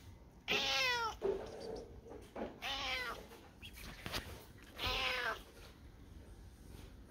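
Domestic cat meowing loudly three times, the calls about two seconds apart.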